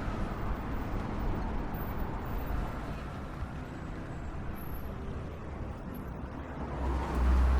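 City street traffic: a steady rumble and hiss of passing vehicles. Near the end a deep low rumble swells and grows louder as a vehicle passes close.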